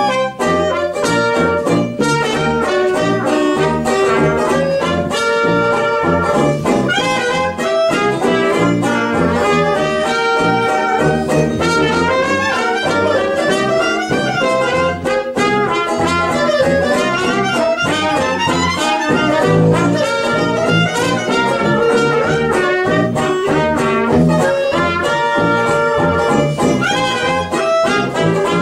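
A 1920s-style small jazz band playing: clarinet and cornet carry the melody together over a strummed banjo and a bass saxophone keeping a steady beat.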